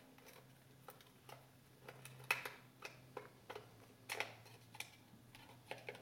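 Scattered light clicks and taps of a small plastic electronics case being handled and its base pried apart after the screws are out, over a faint steady low hum.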